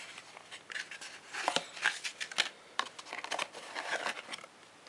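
A cardboard phone box and its foam insert being handled: irregular scraping, rubbing and light taps as the inner cardboard tray is worked loose and lifted out.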